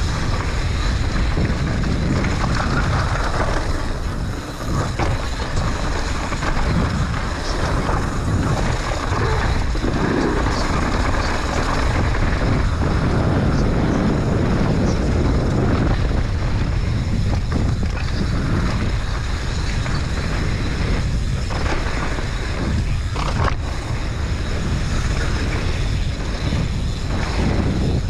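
Wind buffeting an action camera's microphone over the rumble of a downhill mountain bike's tyres on a dirt trail and the rattle of the bike over rough ground, with a few sharper knocks from bumps.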